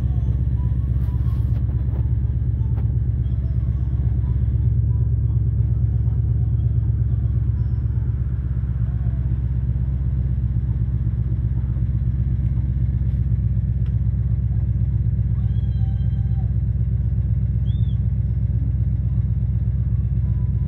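Steady low rumble of an idling engine, with an even pulsing throb and no change in level.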